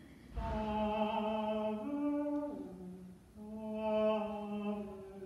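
A single unaccompanied voice singing a slow phrase of long held notes: one long note, a short step up, a step down, a brief pause, then another long note.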